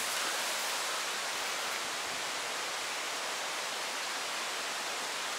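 Steady, even hiss of rushing water, with no distinct drops or splashes.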